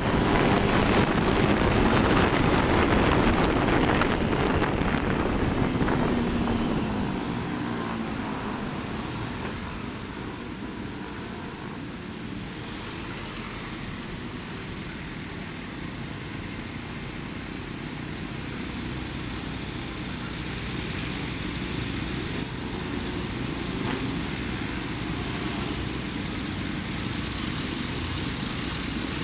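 Motorcycle riding with wind rushing on the microphone, its engine note falling as it slows to a stop over the first several seconds, then the engine idling steadily amid street traffic.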